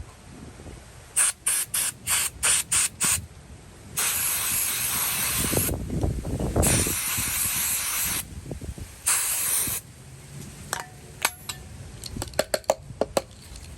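Aerosol spray can hissing into a gunked-up old ratchet, first in about six short squirts, then in three longer blasts, flushing out old grease. After the spraying, a run of light metallic clicks.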